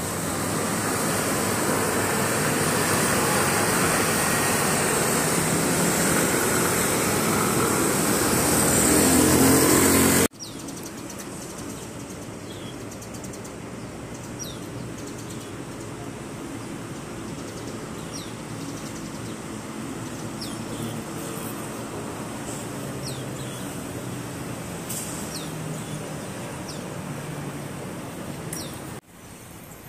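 City street traffic: a steady wash of passing cars and scooters that swells to a peak about ten seconds in. Then an abrupt cut to a much quieter outdoor background with scattered short, high chirps of birds over a faint distant hum.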